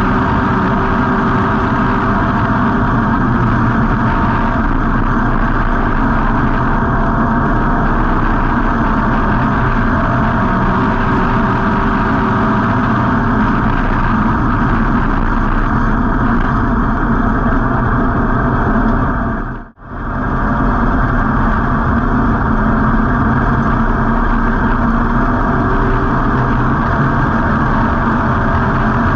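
Street stock race car's V8 engine running continuously, recorded by an on-board camera in the car, with steady engine and road noise. The sound drops out for a split second about twenty seconds in.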